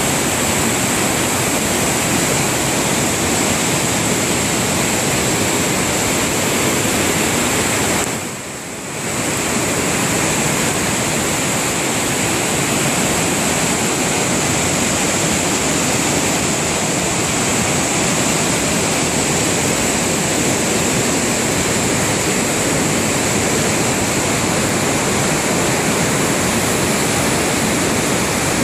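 A river's white water rushing over rocks inside a cave, a loud steady noise that drops briefly about eight seconds in.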